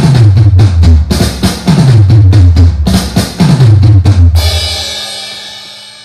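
Drum-heavy intro music: fast drum hits with repeated deep falling bass tones, ending in a cymbal crash about four seconds in that rings and slowly fades.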